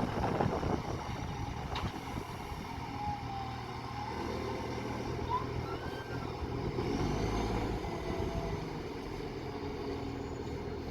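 Garbage truck's diesel engine running steadily, a little louder about two-thirds of the way through; the truck has an exhaust leak.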